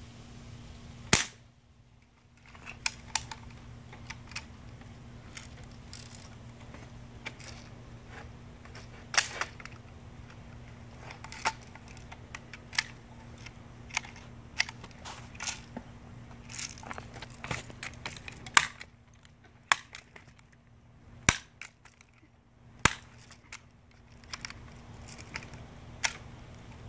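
BB gun shooting, several sharp cracks a few seconds apart with many smaller clicks and ticks between them.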